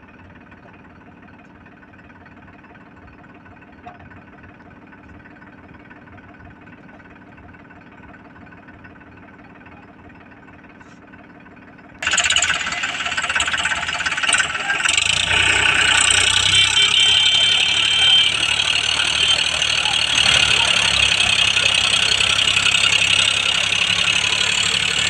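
Diesel tractor engine idling steadily, then, about halfway through, an abrupt change to much louder diesel engine noise as the Powertrac Euro 50 tows the Sonalika 740 and its loaded trolley on a rope, the engines working hard under load.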